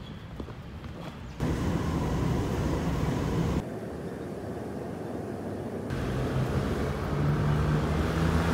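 Vehicle noise from a run of short clips that cut abruptly about every two seconds: a steady ride on a train, then city street traffic. No one speaks.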